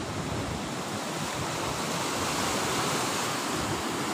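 Sea surf washing, a steady rushing noise that swells slightly in the middle.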